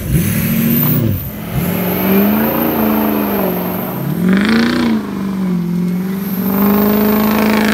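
Ford Super Duty pickup's 7.3 Power Stroke turbodiesel V8 revving hard, its pitch rising and falling several times as the truck spins its tyres in dirt.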